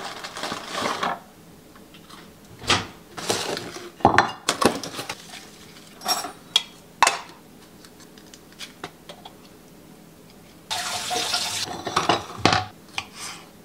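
Kitchen food-prep handling: plastic food tubs, a plate and a cutting board set down and moved on a countertop, with scattered knocks and clinks. A brief hiss lasting about a second comes near the end.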